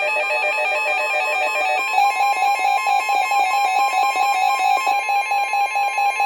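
Weather radio sounding its warning alert: a loud, rapidly pulsing electronic alarm made of several tones. About two seconds in, a steady warning tone joins it, typical of the NOAA Weather Radio attention tone that comes before a severe thunderstorm warning.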